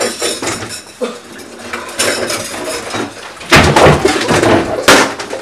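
Dishes and pans clattering and knocking in a kitchen sink during a scuffle, loudest in a long noisy burst about three and a half seconds in and a shorter one near the end.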